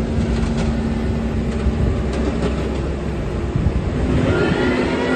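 Diesel engine of a Work Master wheel excavator running steadily under work, with a steady high-pitched tone joining about four seconds in.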